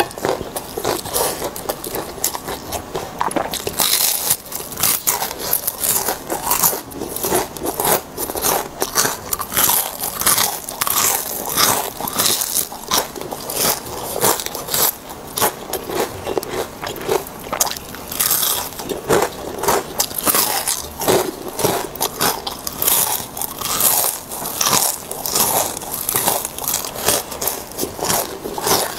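Close-miked crunching as crispy fried vegetable fritters are bitten and chewed: a dense run of sharp crunches, several a second.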